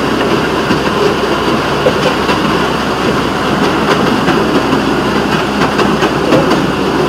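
Small rail motorcar running along the track: a steady rumble of the vehicle and its steel wheels on the rails, with scattered clicks over the rail joints.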